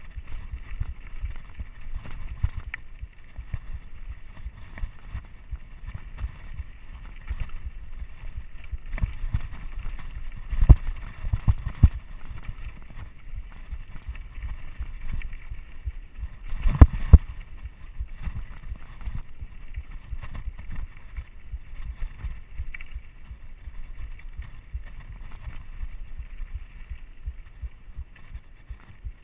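Mountain bike rolling down a loose rocky trail: a continuous low rumble and rattle of tyres and frame over the stones. Sharp knocks as the bike jolts over rocks, a cluster of them just before the middle and the loudest pair a little after it.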